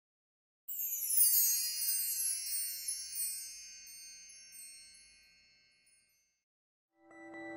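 A shimmering chime sound effect: a cascade of high tinkling tones that dies away over about four seconds. Near the end, music with sustained mallet-like tones begins.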